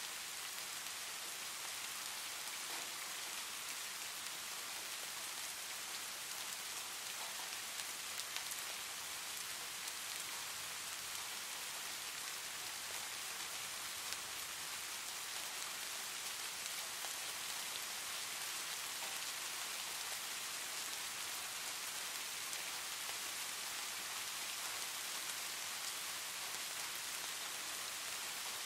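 Steady rain, an even hiss of falling drops that holds the same level throughout, with a couple of faint ticks a third and half of the way in.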